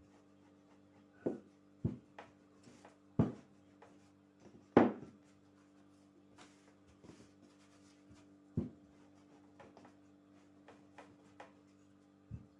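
Wooden rolling pin rolling out dough on a floured tabletop, with about six irregular knocks as the pin comes down on the table, the loudest about five seconds in. A faint steady hum runs underneath.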